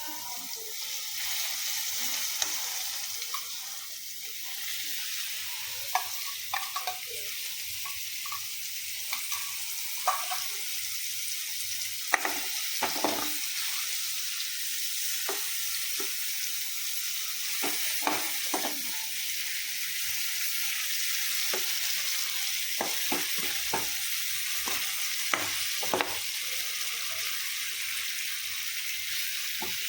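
Marinated paneer pieces sizzling as they shallow-fry in hot oil on a tava, with a steady hiss. Scattered scrapes and taps of a spatula turning them come through, more often in the second half.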